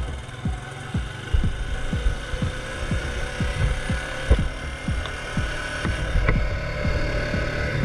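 Honda Foreman 500 ATV's single-cylinder engine running at low speed while riding a rutted dirt track, with a steady whine and a low thump about two to three times a second.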